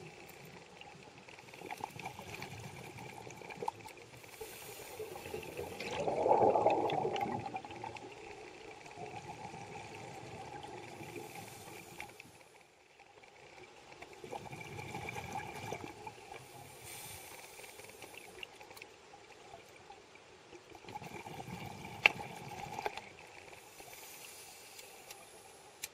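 Scuba regulator breathing underwater: bubbling rushes of exhaled air, the loudest about six seconds in, with two weaker ones later. Water noise hisses faintly between the breaths, and there is one sharp click near the end.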